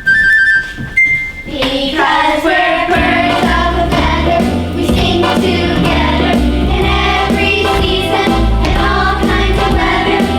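A musical-theatre number: a chorus of voices singing with instrumental accompaniment. After a thinner opening with a few held notes, the full arrangement and the singing come in about two seconds in.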